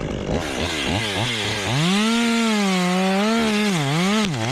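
Two-stroke chainsaw revved in several quick throttle blips, then held at high revs. Its pitch sags and recovers twice near the end, as it does under load while cutting wood.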